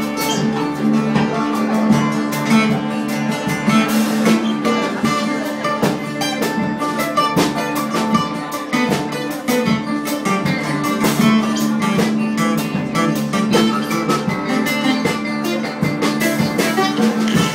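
Live band playing with guitar, upright double bass and percussion, a steady low tone under many quick plucked and struck notes, picked up on a smartphone microphone.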